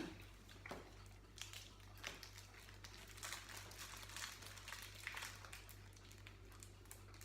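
Candy packet being opened and handled: faint, irregular crinkling and crackling of the wrapper.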